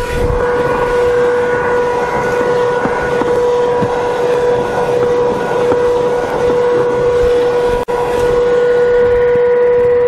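Comfyer 22.2 V cordless handheld vacuum running steadily, a high motor whine over the rush of air through its crevice tool as it sucks dirt off a rubber floor mat. The sound breaks off for an instant about eight seconds in.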